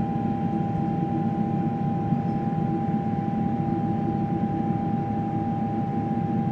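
Steady cabin noise of a Boeing 777-200 in flight, heard from inside the cabin near the wing: an even rush of engine and airflow with one steady high tone running through it.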